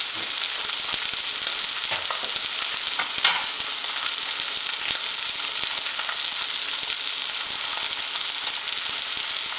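Food frying in hot oil in a pan, a steady sizzle, with a few light clicks and one sharper tap about three seconds in.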